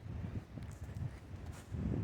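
Strong gusting wind buffeting the microphone: an uneven low rumble that swells near the end.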